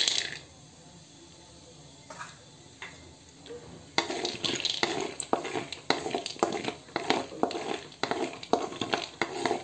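Raw peanuts rattle into a metal kadhai of hot oil at the very start. A few seconds later a wooden spatula starts stirring them around the pan, with a quick run of scrapes and knocks as the peanuts begin to roast.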